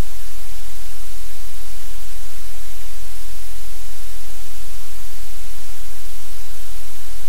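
Loud, steady static hiss over a low rumble, with no change and no distinct events: electronic noise on the audio feed.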